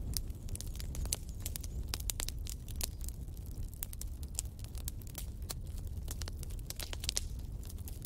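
Wood fire in a fireplace crackling: irregular sharp pops and snaps, several a second, over a steady low rumble.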